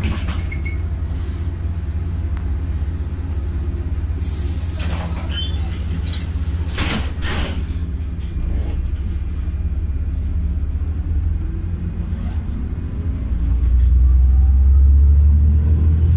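Cabin sound of a LiAZ 5292.67 city bus with a YaMZ-53624 natural-gas engine driving along: a steady low engine and road rumble that swells louder near the end, with a short hiss about four seconds in and a few brief knocks and rattles.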